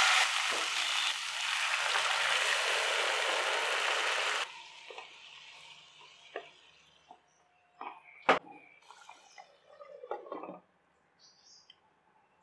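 Masala and drumstick pieces sizzling loudly in a hot pan, cutting off abruptly about four and a half seconds in. After that the curry, thinned with water, cooks quietly with scattered taps of a wooden spatula against the pan and one sharp clack about eight seconds in.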